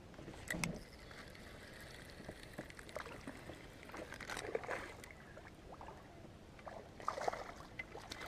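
Water splashing and sloshing around a kayak as a hooked bass is reeled in and fought at the surface, with scattered clicks and knocks, in irregular bursts about half a second in, around four to five seconds in and around seven seconds in.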